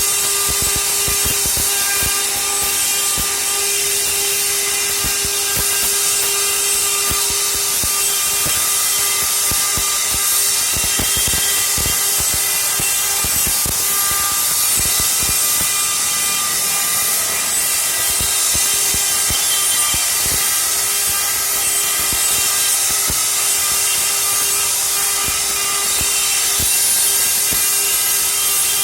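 CNC stone-carving machine cutting into stone: a steady whine over a dense high hiss, with irregular low knocks throughout.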